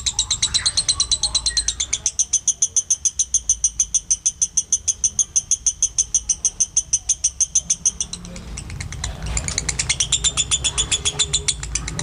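Caged Fischer's lovebird doing the long chattering trill (ngekek) that lovebird contests judge: a fast, high-pitched string of about nine notes a second. It runs for about eight seconds, falters briefly, then starts again about nine seconds in.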